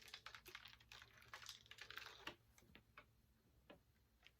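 Faint, irregular light clicks and taps of a capped plastic water bottle being handled.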